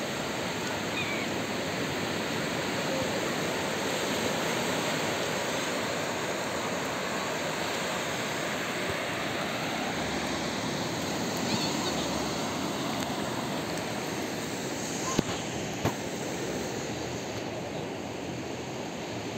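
Surf on a sandy beach: small waves breaking and washing up the shore in a steady rush. Two sharp clicks, a little under a second apart, about three quarters of the way through.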